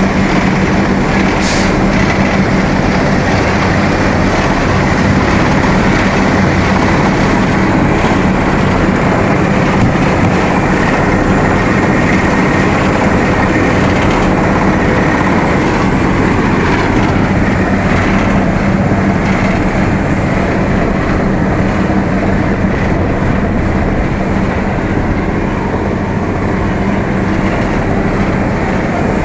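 Asphalt paver machine running: a steady, loud mechanical drone with one constant low hum and no change in speed.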